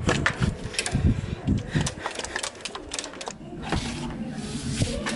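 Metal tin of satin varnish being shaken hard to mix its thick contents, giving quick irregular knocks and thumps that thin out after about three seconds.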